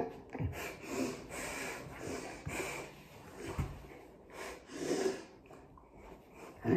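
A person breathing heavily and irregularly through the nose in short, noisy breaths, with a few soft knocks and rubbing of a makeup sponge being handled.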